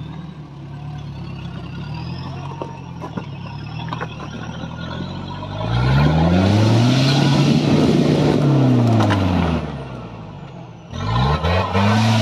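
Off-road 4x4's engine under load on a steep rocky climb: running steadily at lower revs at first, then revving hard about halfway through, holding high for a few seconds, dropping away, and revving up again near the end.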